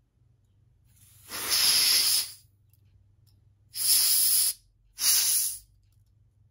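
Three bursts of hissing compressed air from a canned-air duster's straw nozzle, aimed at a model airliner's small engine fans: one of about a second, then two shorter ones close together.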